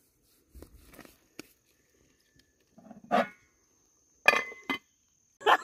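A dog barking a few times: a first bark about three seconds in, the loudest just after four seconds, and a short one right after it.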